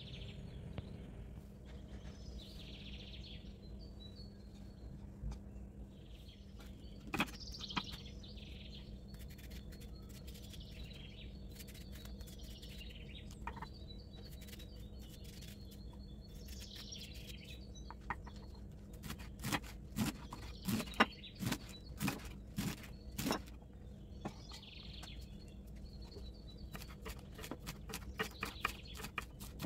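Birds chirping in the background over a steady low hum, with sharp clicks and knocks of kitchen work, clustered most densely a little past the middle and again near the end.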